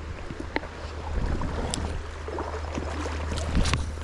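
River water rushing over rocks, with wind buffeting the microphone as a low rumble, and a few sharp clicks.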